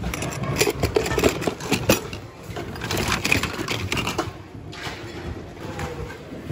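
Hands rummaging through a bin of mixed household junk: hard plastic items clattering and knocking together in quick, irregular clicks. The clatter thins out after about four seconds.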